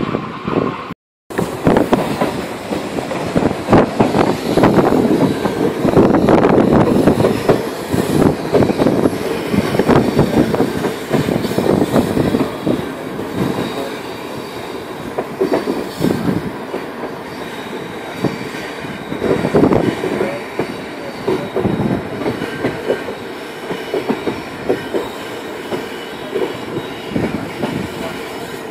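Indian Railways passenger train running at speed, heard close beside the coaches: wheels rumbling and clattering over the rails. The sound is busiest and loudest over the first dozen seconds, then steadier, with a brief dropout about a second in.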